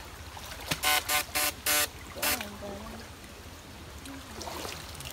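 Electric fish-shocking rod buzzing in four short, loud bursts in quick succession about a second in, over the steady wash of shallow stream water.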